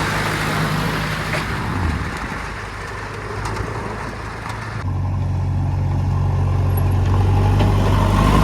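Heavy diesel engine running steadily with a low hum. About five seconds in the sound changes abruptly: the higher noise drops away and the deep engine note becomes stronger.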